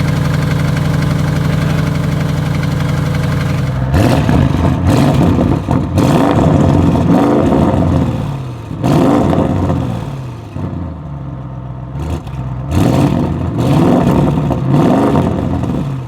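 Audi RS6 C8's twin-turbo V8, breathing through catless downpipes with the particulate filter deleted, idles steadily for about four seconds and is then revved about five times, the pitch sweeping up and falling back each time. Sharp cracks from the exhaust sound around several of the revs.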